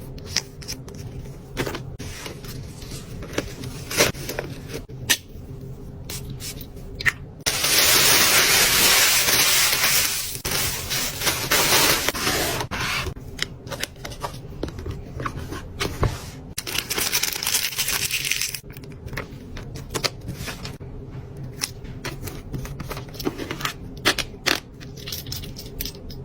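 Fingernails tapping fast on packaging in sharp separate clicks, then a loud stretch of scraping and tearing of the packaging for several seconds, fading into rustling before the tapping resumes near the end.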